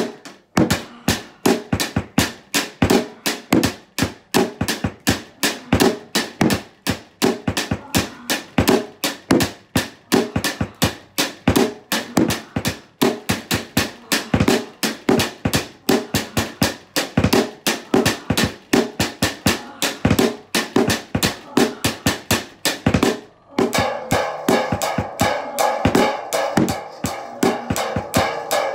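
Snare drum and cymbal struck with wooden sticks in a steady, fast beat, with a brief break a little past twenty-three seconds in. After the break a sustained pitched sound plays under the hits.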